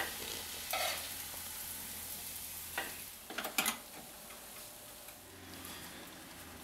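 Hot oil sizzling in a cast-iron skillet as mung bean pancakes fry, a steady hiss, with a few sharp clicks and knocks about a second in and again around three to four seconds in.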